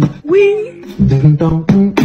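Background music: plucked guitar with a singing voice, in a short repeating phrase of a held note followed by quick plucked notes.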